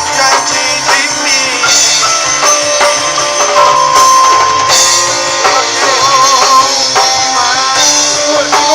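Band playing music with drums and percussion, with held and wavering melody lines over a steady beat.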